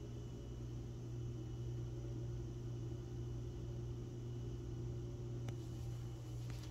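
Steady low machine hum with a faint hiss, and one faint click near the end.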